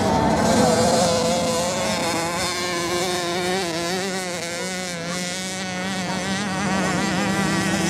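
Motocross bike engines buzzing as the bikes race round a sand track, their pitch wavering up and down as the riders work the throttle.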